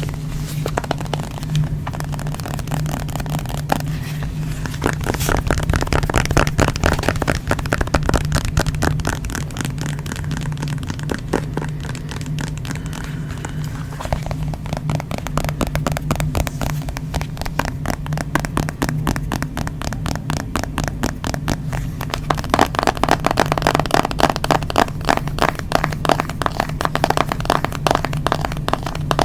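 Fingers tapping rapidly on a smartphone, several sharp taps a second, over a steady low hum.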